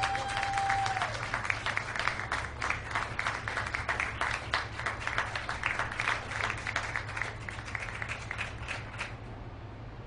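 Audience applause: many hands clapping steadily, dying away about a second before the end. A single held tone sounds briefly at the start.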